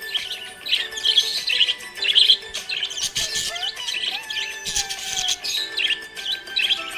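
Budgerigar chirping in quick, high, continuous bursts, over background music with held tones.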